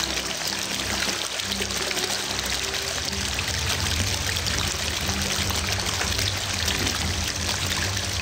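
Shallow stream running over a low line of stones, a steady rush of water, with background music underneath.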